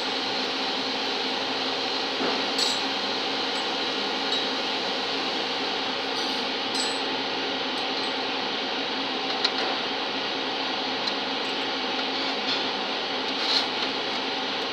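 Steady drone and hiss of workshop machinery with several steady tones in it, and a few short metallic clicks from the aluminium bearing cap and pliers being handled.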